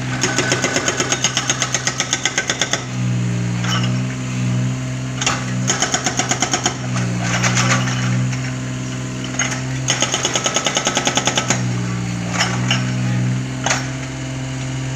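Hydraulic breaker on a Takeuchi mini excavator hammering concrete in several bursts of rapid, evenly spaced blows, the longest at the start and a few short ones near the end. The excavator's diesel engine runs steadily underneath throughout.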